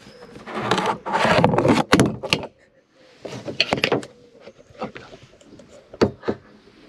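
Handling noise from the camera being moved about in a kayak: rubbing and scraping for the first couple of seconds, then a few sharp knocks around two, four and six seconds in.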